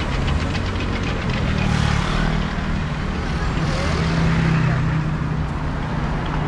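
Street traffic: cars driving past close by with a steady low rumble that swells twice as vehicles go by.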